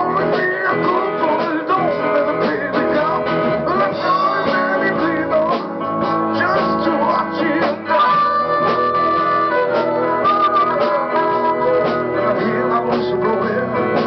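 Live blues band playing, led by a strummed resonator guitar over drums and a second guitar, with a long held high note about eight seconds in.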